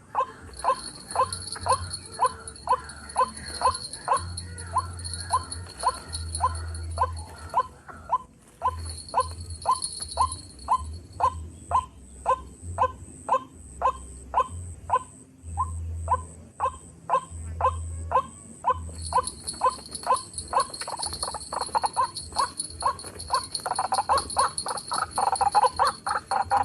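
White-breasted waterhen (ruak-ruak) call played through a small speaker as a trapping lure: a short note repeated about twice a second, getting louder and rougher near the end. Insects keep up a steady high buzz behind it, which drops out for several seconds in the middle.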